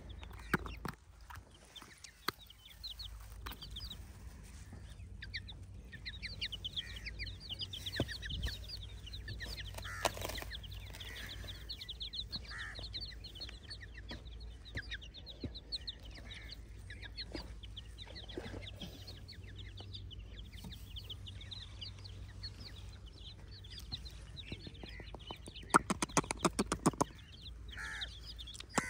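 Baby chicks peeping: a steady stream of short, high, falling chirps from several chicks. Near the end there is a quick run of sharp clicks and knocks.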